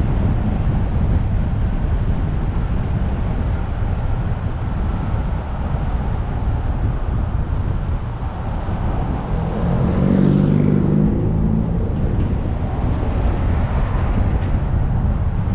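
Car driving on city streets, with a steady rumble of engine and road noise. About ten seconds in, a deeper engine hum grows louder for a couple of seconds, then fades back into the rumble.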